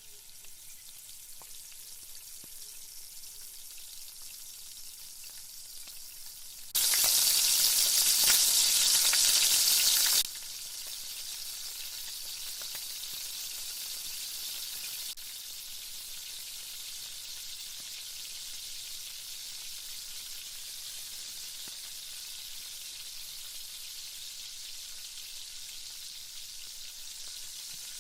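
Battered chicken pieces deep-frying in hot oil, a steady sizzle. About seven seconds in the sizzle jumps to much louder for about three seconds, then drops back.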